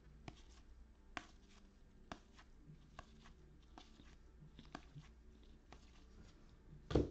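Football trading cards flipped through one at a time by gloved hands: soft, irregular clicks and ticks of card edges against the stack, with one louder knock near the end.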